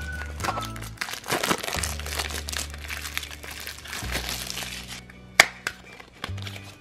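Plastic packaging crinkling and rustling as hands open a Shopkins blind basket, with a sharp click a little past five seconds in. Quiet background music underneath.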